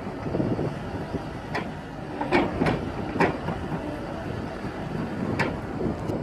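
Komatsu PC200LC-8 excavator's six-cylinder turbo diesel engine running steadily, with about six sharp metal clanks scattered through it, the loudest about two and a half and three seconds in.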